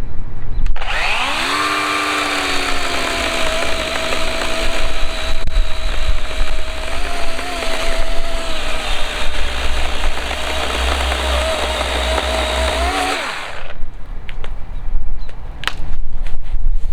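Cordless electric chainsaw cutting a small log: the motor whine starts about a second in, drops in pitch as the chain bites into the wood, holds a steady pitch under load for about twelve seconds, rises slightly, then stops.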